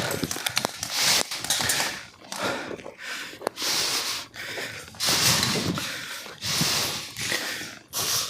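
A person breathing hard close to the microphone: a run of rushing breaths, about one every second and a half, with a few faint clicks between them.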